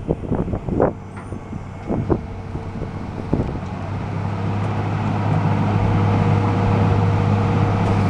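Hitachi EX200-5 LC excavator's diesel engine running, with irregular knocks over the first few seconds, then a steady drone that grows louder from about halfway through.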